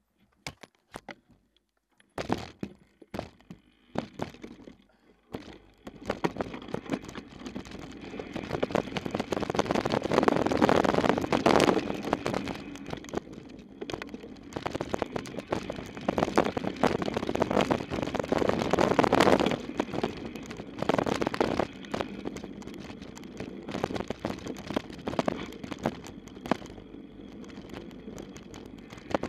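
Mountain bike riding fast down a dirt trail, heard from a camera mounted on the bike or rider: a steady rush of tyre and wind noise with frequent rattling knocks as the bike goes over bumps. It opens with a few scattered clicks and knocks, and the rush builds from about six seconds in, swelling louder twice.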